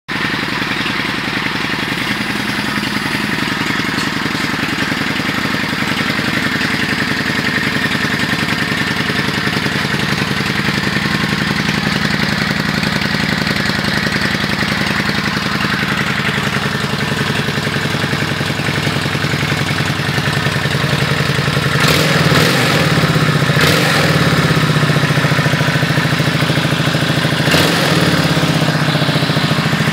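1996 Honda Shadow ACE VT1100C1's V-twin engine running at a steady fast idle on the choke, as it does on a cold start. It gets a little louder about 22 seconds in, with a few brief wavers in the note.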